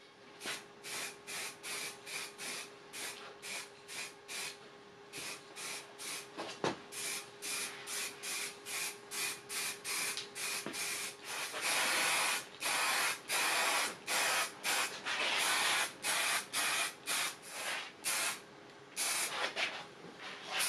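Aerosol spray paint can hissing in many short bursts, about two a second, with longer sprays of around a second each from about twelve seconds in, then short bursts again. A faint steady hum runs underneath.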